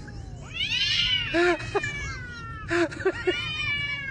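Two cats yowling at each other in a standoff: long, wavering yowls that rise and fall, about a second in and again near the end, with short, sharper calls between them.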